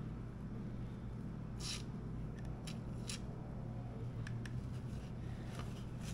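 Paper towel being crinkled and stuffed in by hand around a motorcycle's front sprocket, a few short crisp rustles over a steady low hum.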